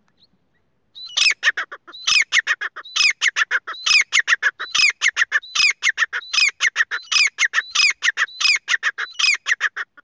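Grey francolin (teetar) giving its loud, ringing territorial call: the same phrase, a rising note and then a quick run of clipped notes, repeated about every 0.8 seconds, starting about a second in.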